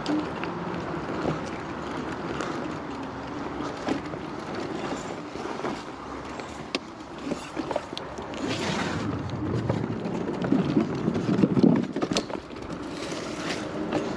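Gotrax GX1 off-road electric scooter riding over a rough dirt trail: a steady rumble of tyres on uneven ground with scattered knocks and rattles, growing louder about eight seconds in and again near the end.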